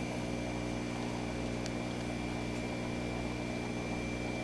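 Steady electrical hum of a jellyfish aquarium's pump and equipment running, with a faint high steady whine above it.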